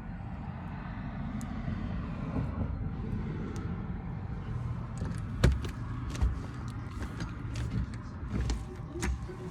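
Steady low rumble of passing road traffic, with a few sharp clicks, the loudest about halfway through, as the two bare doorbell wires are tapped together to test the chime circuit.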